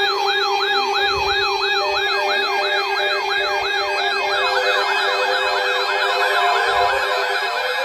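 Electronic siren in a fast yelp, its pitch swinging up and down about three times a second, over a steady lower tone. A second yelp joins partway through, overlapping the first, and the low steady tone cuts off near the end.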